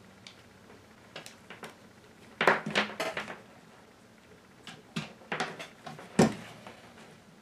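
Hands handling and plugging together the plastic DC power and video connectors of a security camera cable and power splitter on a wooden tabletop. A scatter of small clicks and knocks comes in two clusters, the sharpest knock near the end.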